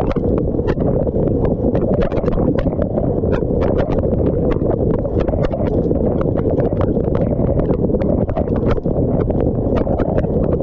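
Dishwasher wash cycle heard from inside the tub through a GoPro's housing: a loud, steady, muffled rush of water spray, with many irregular sharp ticks over it.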